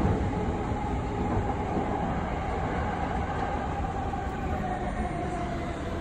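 JR East 209-series 1000-subseries electric commuter train running, heard from inside the car: a steady low rumble of wheels and running noise with a faint whine that wavers in pitch.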